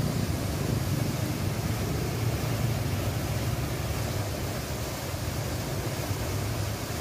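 Muddy river water rushing and churning over rocks in the channel just below a river weir, a steady, unbroken noise.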